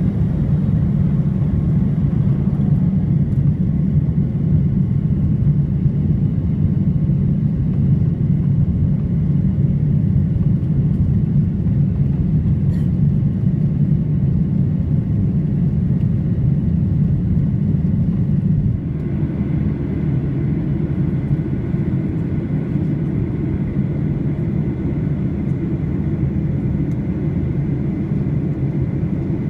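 Cabin noise of a Boeing 737-800 heard from a rear window seat: its CFM56 turbofan engines and the airflow make a steady low rumble. About two-thirds of the way through, the rumble drops a little quieter and a faint high whine comes in.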